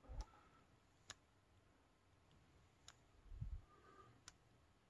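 Near silence broken by a few faint clicks and a soft low thump: a fingertip tapping and pressing the small touchscreens of T2 tile computers.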